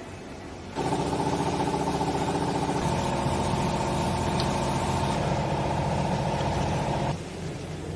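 Small hydraulic clothing baler's pump and motor running under load, starting abruptly about a second in and cutting off abruptly near the end, over a steady electric hum.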